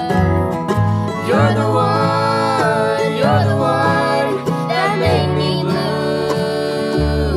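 Bluegrass band playing and singing a song: several voices singing in harmony over acoustic guitar, mandolin, resonator guitar and upright bass.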